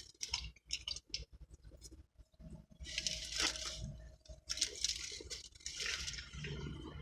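A person chewing food with the mouth open and close to the microphone: irregular wet clicks and smacks.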